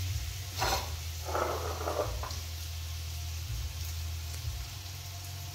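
Cooking on a stove: food sizzles faintly over a steady low hum, with two brief scraping noises, one about a second in and one about two seconds in.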